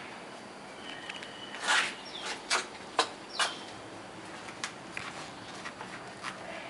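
Plastic clicking and crackling in a few sharp bursts as a cat chews on it, with a couple of short high chirps that fall in pitch.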